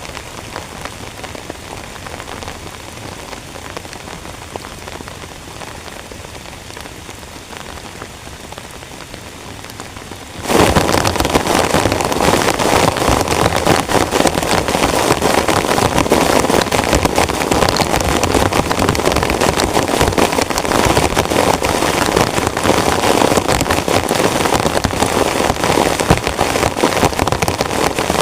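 Heavy rain falling and pattering, with dense drops. About ten seconds in, the sound abruptly becomes much louder and fuller.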